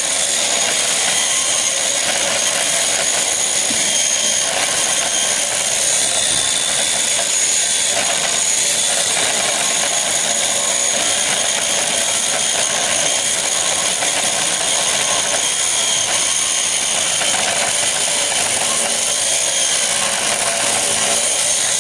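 Angle grinder grinding the bevel on a steel pipe end, running steadily under load with a constant high whine over the grinding hiss. This is manual bevelling of the pipe edge in preparation for welding.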